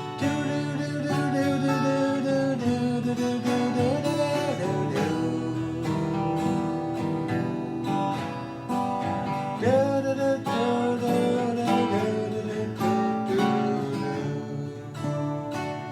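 Instrumental break of an acoustic guitar song: strummed acoustic guitar with a lead melody line that bends in pitch over the chords.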